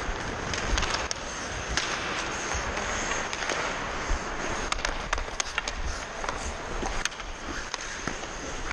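Ice hockey skates scraping and carving on rink ice in a steady hiss, broken by many sharp clacks of sticks hitting the ice and the puck.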